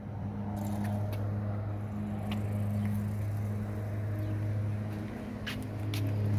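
Steady low machine hum from an unseen motor running continuously, with a few faint short clicks over it.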